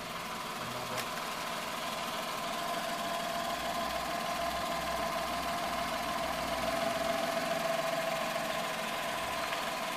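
Suzuki Every van's engine running steadily, with a steady whine that swells a little midway and then eases.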